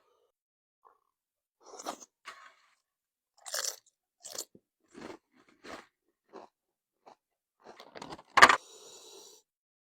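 Close-up chewing of Tostilocos, crunchy tortilla chips with toppings, one crunch about every 0.7 s. A much louder crunching bite comes near the end.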